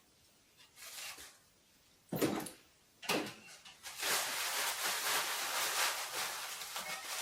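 Chimney parts and their packaging being handled during unpacking: two short knocks about two and three seconds in, then continuous rustling of packaging from about four seconds on.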